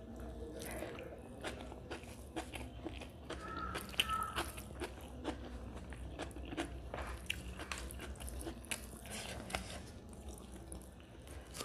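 Eating sounds: chewing a mouthful of rice and mutton curry, with wet mouth smacks and clicks, and fingers squishing rice on a metal plate. The clicks come irregularly throughout, the sharpest about four seconds in.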